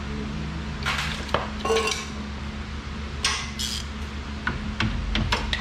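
Metal-on-metal clinking and scraping as steel car suspension parts are worked into place: several rattling scrapes, then a quick run of sharp clicks near the end, over a steady low hum.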